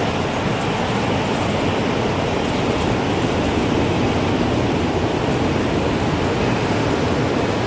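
Strong wind blowing with a steady, even rush, heaviest in the low and middle range; no distinct wind-chime tones stand out.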